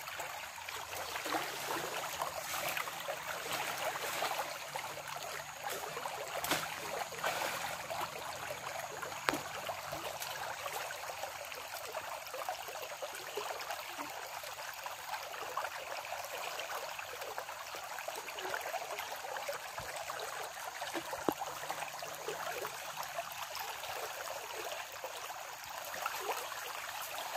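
Stream water running steadily, with a few sharp knocks about a third of the way in and again near the end.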